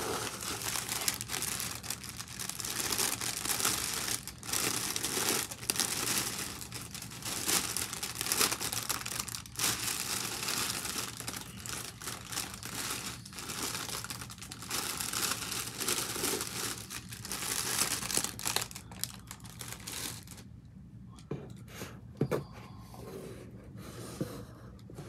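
Plastic packing wrap crinkling and rustling as hands pull it out of a cardboard box. The handling is dense and continuous, then thins to sparser, quieter rustles with a few small knocks near the end.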